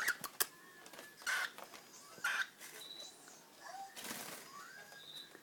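Cockatiels giving a few short chirps and small calls, with a handful of sharp clicks at the start and a brief rustle about four seconds in.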